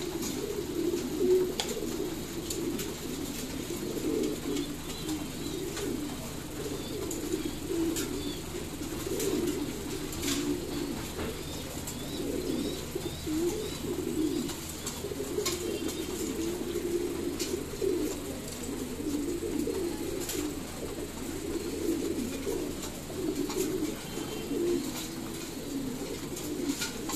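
A loft full of caged domestic pigeons cooing continuously, many low calls overlapping into a steady murmur, with scattered faint clicks.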